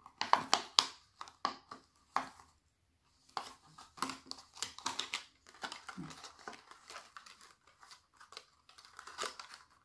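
Thin clear plastic cup crinkling and crackling in irregular bursts as sock loops are pulled and worked around it by hand, with a short pause about two and a half seconds in.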